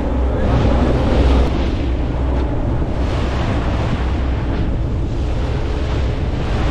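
Wind buffeting the microphone on the open stern of a small tour boat under way, over the steady low rumble of its engine and the wash of its wake.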